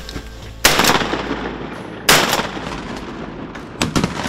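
Two loud shotgun shots about a second and a half apart, each trailing off in echo, followed near the end by a few fainter sharp cracks.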